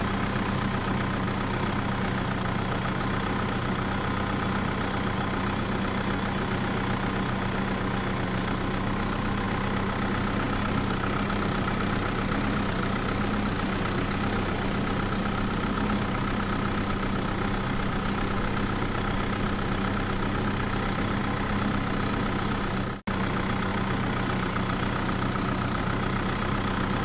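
Mini tractor running steadily with an even, idling-engine sound. It breaks off for an instant about 23 seconds in.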